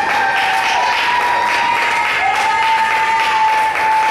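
Audience applauding and clapping at the end of a wrestling match, over a held high tone that slides up into a new note about two seconds in.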